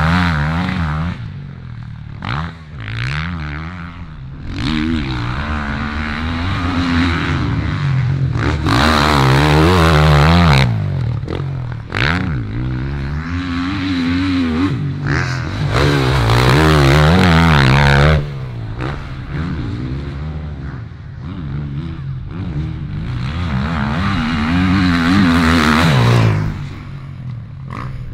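Motocross dirt bikes revving hard through the turns and down the straights, engine pitch rising and falling with each gear change and throttle blip. Bikes pass close three times, about ten, seventeen and twenty-five seconds in, louder at each pass.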